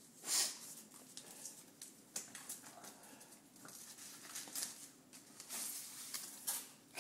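Packaging being unpacked: rustling and scraping of a soft protective sleeve and cardboard box. One louder rustle about half a second in, then scattered rustles and light clicks, with a busier spell near the end.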